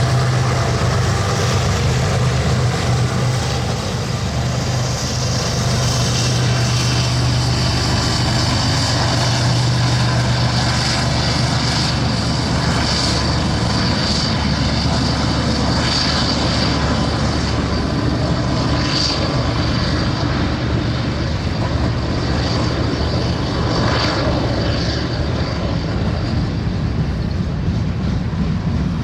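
Diesel-electric freight locomotives running by with a steady, loud low engine drone that eases in the middle and builds again near the end. A high squeal from the wheels on the rails comes and goes over it.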